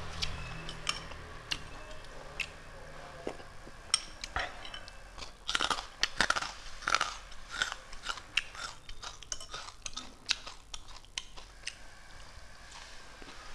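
A person eating close to a clip-on microphone: chewing, lip smacks and wet mouth clicks, with louder chewing through the middle.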